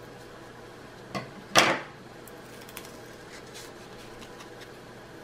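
Scissors set down on a wooden tabletop: a faint tap about a second in, then one short clack about a second and a half in, against quiet room tone.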